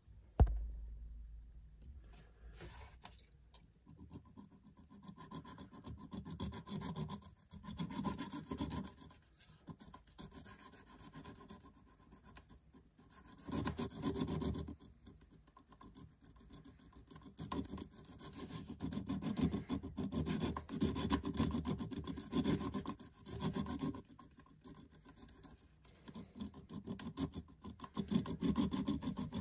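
A small flat file scraping back and forth on the metal edge of a camera lens mount adapter, taking off the black paint where an electronic lens chip is to be glued. It comes in bouts of rasping strokes with short pauses, after a single sharp bump just at the start.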